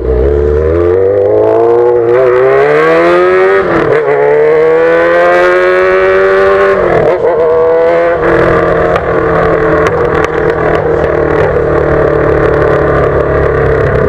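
Yamaha XJ6's inline-four engine running loud through a straight pipe with no muffler. It pulls hard through two gears with a rising pitch, dipping briefly at each upshift about four and seven seconds in, then holds a steady note.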